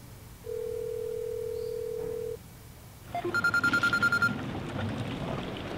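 Telephone call ringing out: one steady ringback tone for about two seconds after the number has been dialled. After a short pause, a mobile phone rings with a rapid, pulsing high electronic ringtone for about a second, over faint outdoor background noise.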